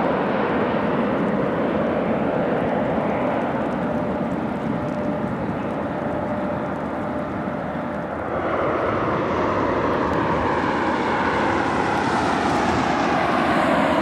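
Jet airliner engines on landing approach, a steady heavy rush of engine noise. About eight seconds in the sound cuts to a second approaching Boeing 737 MAX 9, its noise growing with a downward-sweeping, phasing tone running through it.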